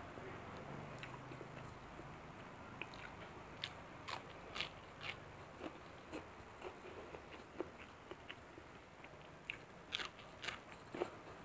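A person chewing and biting food close to the microphone: short, sharp crunches and clicks of the mouth scattered through, coming thickest about four to five seconds in and again near the end.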